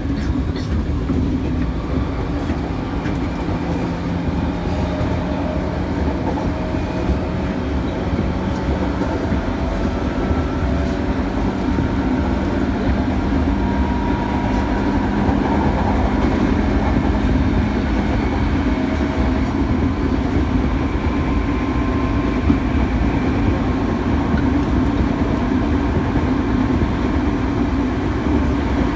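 JR 205 series electric train with inner-fan traction motors, heard from inside the car while running at speed: a steady rumble of wheels on rail with a motor hum, and fainter whining tones that drift up and down in pitch. A single sharp knock comes about two-thirds of the way in.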